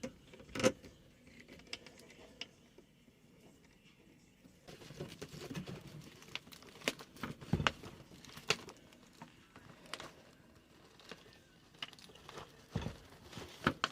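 Scattered small clicks, taps and rustling from hands working the garbage disposal's electrical wires under the sink. It is mostly quiet for the first few seconds, then busier, with a few sharper clicks.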